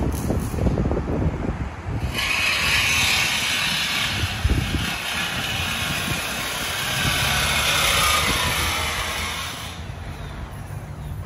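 A vehicle engine running with a low rumble. A steady hiss starts abruptly about two seconds in and cuts off near the end.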